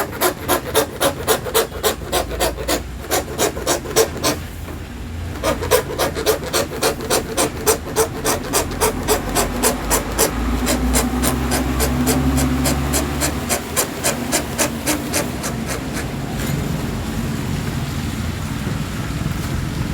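Hand saw cutting through an acrylic sheet in even back-and-forth rasping strokes, about three a second, with a short pause about four seconds in. The sawing stops about sixteen seconds in. A low rumble rises and fades in the middle.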